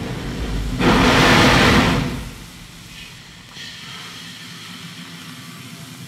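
Steam-era train at a standstill: a loud hiss of escaping air or steam starts about a second in and lasts about a second, then gives way to a quieter low rumble with faint hissing.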